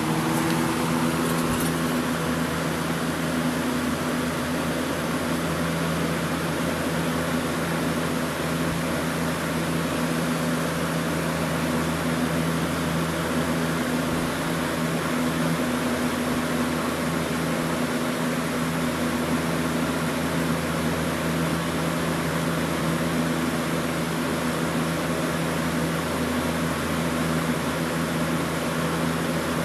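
Galaxy Model 3723 20-inch box fan running steadily: a constant motor hum under an even rush of air from the blades.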